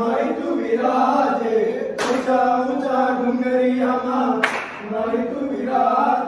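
Men singing a garba in praise of Mataji together, with a sharp clap twice, about two and a half seconds apart, as the dance's beat.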